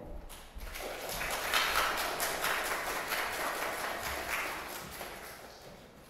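Audience applauding, starting about half a second in and dying away over the last couple of seconds.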